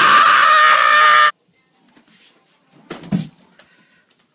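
A loud, harsh, distorted cry that cuts off abruptly about a second in, followed by faint scattered knocks and rustles.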